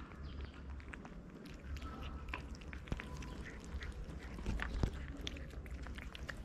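Cats chewing wet cat food from plastic bowls: irregular wet smacking and clicking of the mouths on the food, with a few sharper clicks among them.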